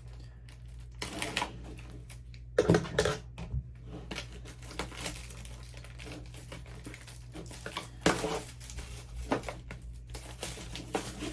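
Plastic shrink wrap crinkling and tearing as a Pokémon booster box is unwrapped, with scattered small clicks and knocks from the box being handled.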